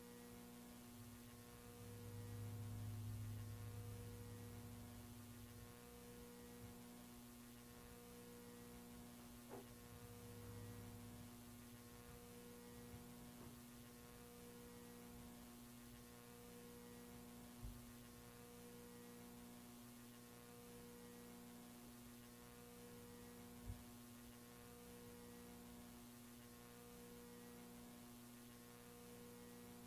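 Near silence: a faint electrical mains hum, a steady tone with a layer that swells and fades about every two seconds, over faint hiss, with a couple of faint clicks.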